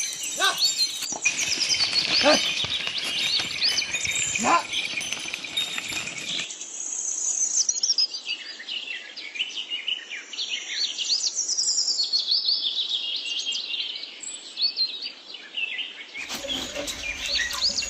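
Many small birds chirping and whistling in a busy chorus of short high calls. Near the end a broader noise joins in.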